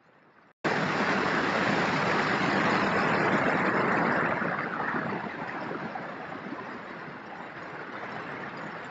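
Rushing airflow and propeller noise from a camera mounted on an E-flite Carbon-Z Cessna 150 RC model in flight. The noise starts abruptly about half a second in, stays loud for several seconds, then eases off as the model slows low over the beach.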